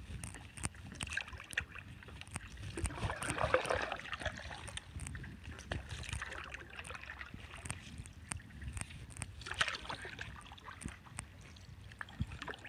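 Paddle strokes from a stand-up paddleboard on calm water: the blade dipping and pulling, water swishing and dripping, with many small clicks and knocks. Louder swishes come about three to four seconds in and again near ten seconds in.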